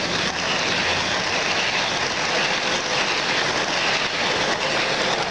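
S-gauge American Models Amtrak passenger train rolling past on the layout track, a steady noise of model wheels running on the rails.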